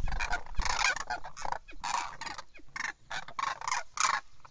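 A flock of demoiselle cranes calling, many short calls overlapping and following one another in quick succession.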